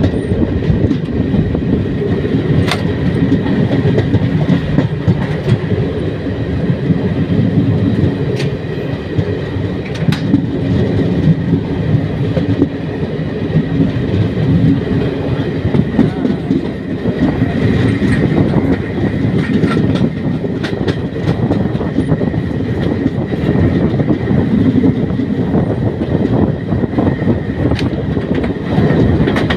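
Passenger express train running along the line, heard from aboard: a steady rumble of wheels on the rails, with a few sharp clicks.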